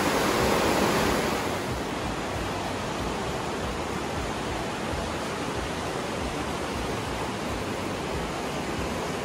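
Glacial river water rushing through a narrow rock gorge as a steady, even noise. It is louder and brighter for about the first second and a half, then settles a little quieter.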